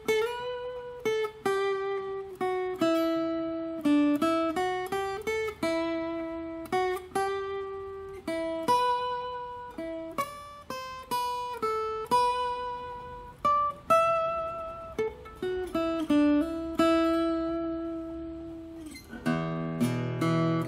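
Future FAG006C 40-inch linden-body acoustic guitar played with a hard pick: a single-note melody of plucked notes, each ringing and fading, then a full strummed chord near the end.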